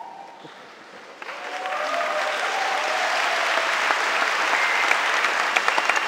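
Large audience applauding, starting about a second in and swelling to a steady level.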